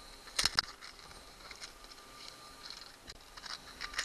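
Drill bits and small tools being handled: a couple of sharp clicks about half a second in, then faint scattered ticks and light rattles.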